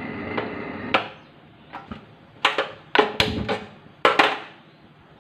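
Aluminium pressure cooker and its lid being handled on a gas stove: a string of irregular sharp metal knocks and clanks with a short ring, loudest in a cluster about three to four seconds in.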